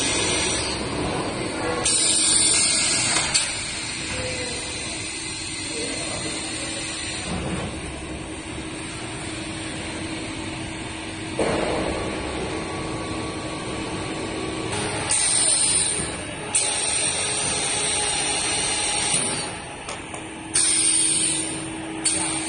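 PVC pipe extrusion line running: a steady machine hum, broken several times by hissing bursts lasting a second or two.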